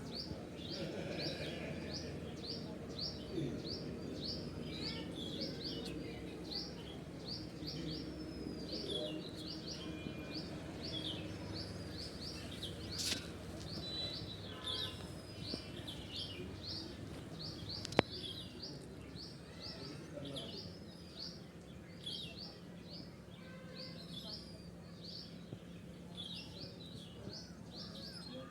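A chorus of small birds chirping steadily, quick high chirps overlapping several to the second. A single sharp click stands out about 18 seconds in.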